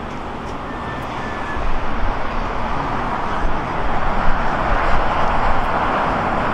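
Jet airliner noise swelling to a broad rushing roar that is loudest around four to six seconds in, with low gusts of wind rumble on the microphone.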